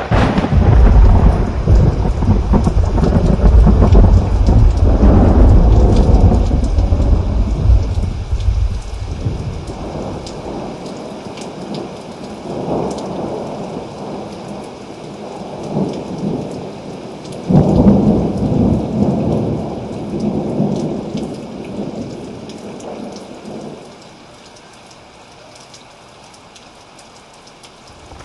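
Thunderstorm with steady rain: a sudden thunderclap at the start rolls into a deep rumble that fades over about ten seconds. After a couple of smaller rumbles, a second clap a little past halfway rumbles for several seconds, leaving only the rain near the end.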